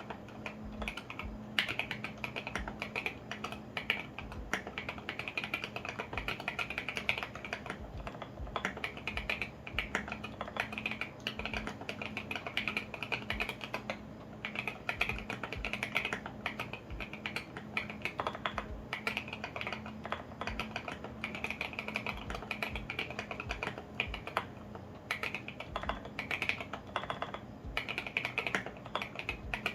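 Continuous fast typing on a custom mechanical keyboard: lubed and filmed Alpaca V2 linear switches under SA-profile ABS keycaps, in an acrylic Tofu65 case with foam and o-ring gasket mods.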